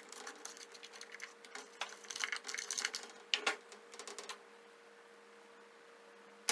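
Small plastic clicks, taps and rattles as the top cover and air filter are taken off a McCulloch Pro Mac 605 chainsaw, busy for the first four seconds or so, with a sharp click at the very end. A faint steady hum runs underneath.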